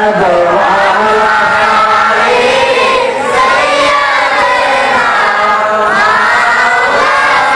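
Melodic chanting by a man's voice amplified over a public-address system, blended with many voices of a crowd, in long sustained phrases that rise and fall in pitch.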